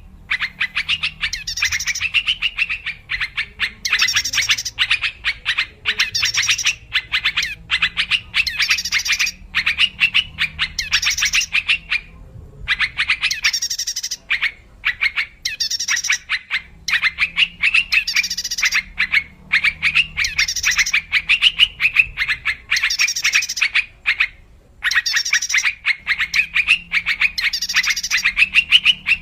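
Yellow-vented bulbul (trucukan) calling: fast, bubbly chattering phrases repeated over and over with only a few brief breaks.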